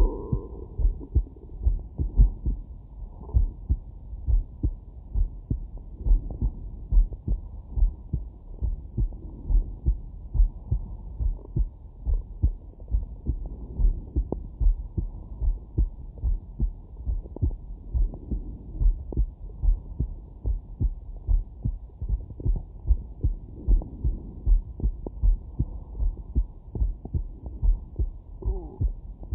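A man's heartbeat heard through a Stemoscope digital stethoscope: a steady run of low, muffled beats, with a skipped beat near the start.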